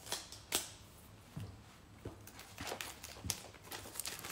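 Scissors snipping at the seal of a cardboard phone box, with the box and its wrapping crinkling: a handful of short sharp clicks spaced irregularly, half a second to a second apart.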